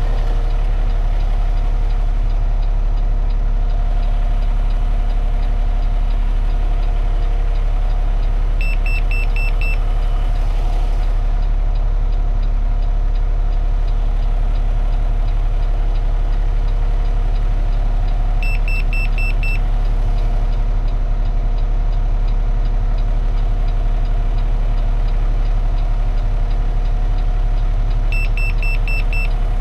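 Refuse truck's diesel engine idling steadily. Three short bursts of rapid high electronic beeps come about ten seconds apart: the PreView Side Defender II's in-cab audible alert for a detected object beside the truck.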